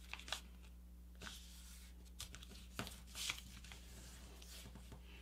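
Faint rustling and a few soft crackles of a sheet of paper being folded and creased by hand.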